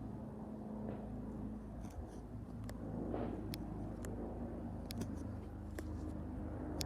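AW189 helicopter's steady low drone, swelling about three seconds in, with scattered sharp clicks.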